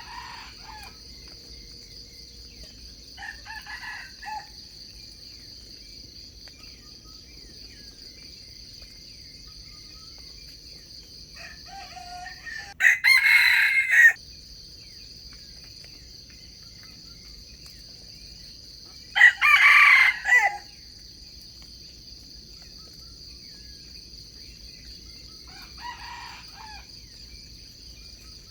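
Junglefowl roosters crowing: two loud crows of a little over a second each, about 13 and 19 seconds in, with fainter, more distant crows near the start, around 3–4 seconds in and near the end. A steady high-pitched insect drone runs under them.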